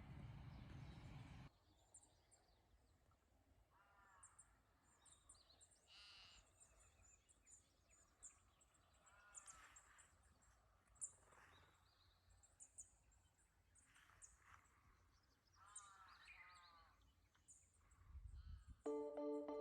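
Faint bird calls: several harsh, caw-like calls among many short, high chirps of small birds. A steady hiss at the start cuts off suddenly after about a second and a half.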